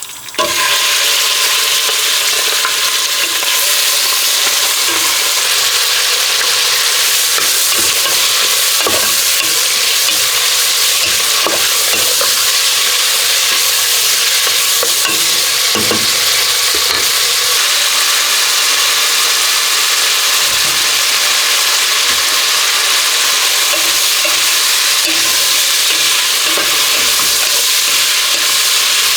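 Food frying in hot oil in a pan, a steady loud sizzle that starts suddenly about half a second in, with a few light knocks through it.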